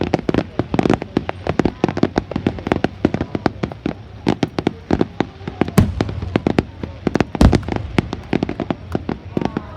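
Fireworks display: a fast barrage of sharp bangs and crackles, several a second, with two heavier booms in the second half.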